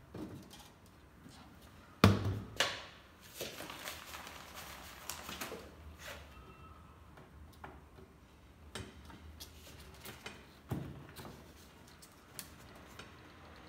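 Handling noises from cardboard, a metal rod and a clear plastic container. There are sharp knocks about two seconds in, the loudest of them, then cardboard scraping and rustling against the plastic rim, scattered clicks, and another knock near eleven seconds in.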